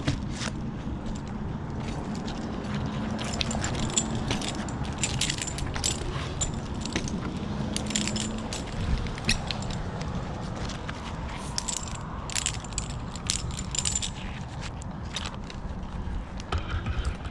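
Metal tree-climbing hardware (carabiners and rope devices) clinking and jingling irregularly as a climber works his way up a rope, over a low steady hum.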